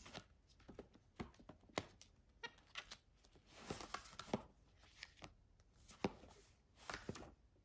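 Paper pages of a hardcover book being flipped and handled by a monkey's hands: a faint, irregular run of soft paper flicks and rustles, with longer rustling about halfway through and again near the end.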